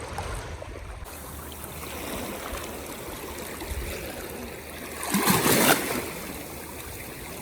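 Sea water washing and trickling at the shore, with a louder surge about five seconds in.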